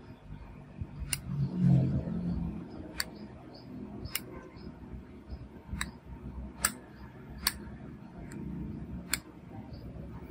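S Pen stylus tapping on the glass touchscreen of a Samsung Galaxy Note 9: about eight sharp clicks at uneven intervals, with a brief low rumble about two seconds in.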